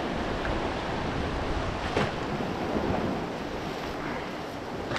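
Sea surf washing against a rocky shore, with wind buffeting the microphone; a sharp click sounds about two seconds in and another near the end.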